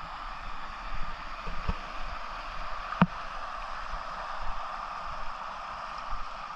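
River water rushing steadily over rocks, with one sharp click about three seconds in.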